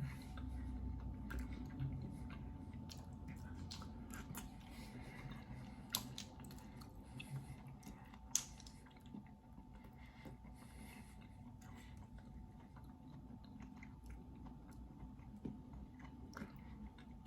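A person chewing and eating seafood boil up close, with scattered sharp clicks; the loudest come about six and eight seconds in.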